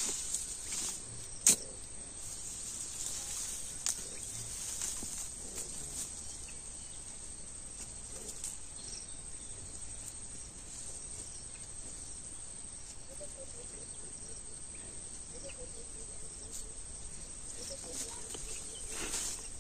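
Machete chopping and digging into soil around cassava roots, with a sharp knock about a second and a half in and scattered softer knocks. A steady high insect chirr runs underneath.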